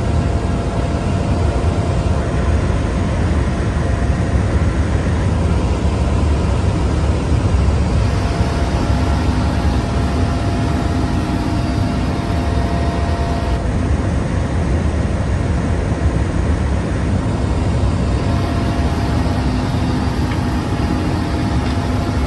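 Helicopter cabin noise in flight: the turbine engines and rotor make a loud, steady, deep drone, with a faint steady whine above it.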